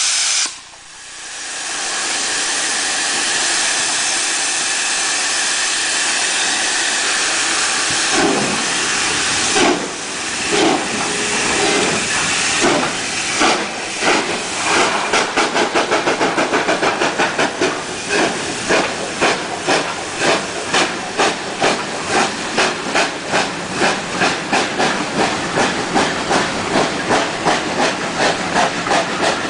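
USA S160 2-8-0 steam locomotive hissing steam steadily, then starting away with its train: the exhaust chuffs begin slow and widely spaced about eight seconds in and quicken into a steady beat of about two a second.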